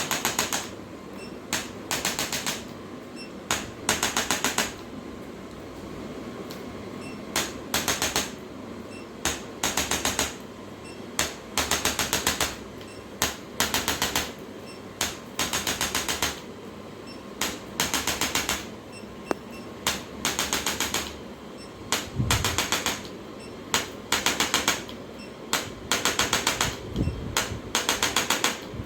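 Short bursts of rapid mechanical clicking, each under a second long, repeating irregularly every second or so over a steady background noise.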